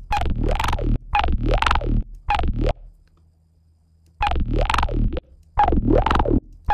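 Bass-heavy synth loop playing through the FabFilter Volcano 3 filter plug-in, with a resonant bell peak and its drive turned up to add distortion. The sound comes as short notes about half a second long, with deep bass and gliding upper tones. It stops for about a second and a half in the middle, then starts again.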